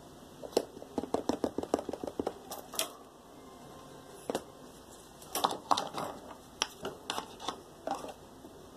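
Sharp metallic clicking and rattling from a wire hamster cage's bars and door: a quick run of clicks about a second in, then scattered single clicks and short clusters.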